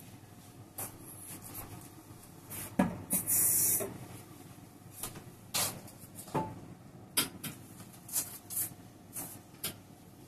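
Scattered light knocks and clicks of kitchen handling, with a short rustling hiss about three seconds in.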